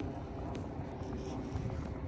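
Wind rumbling on the microphone, with footsteps crunching in fresh snow.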